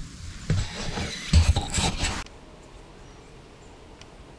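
Close rustling and dull bumps, like clothing and gear shifting against the microphone, for about two seconds, then an abrupt drop to a quiet outdoor background with a few faint ticks.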